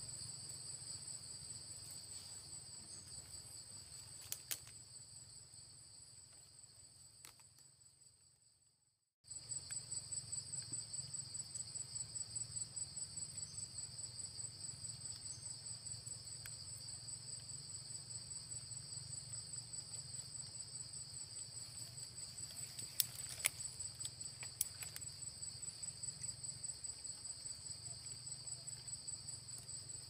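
Insects trilling in a steady chorus at two high pitches, pulsing about three times a second. It fades away and breaks off about nine seconds in, then starts again abruptly, with a few sharp clicks.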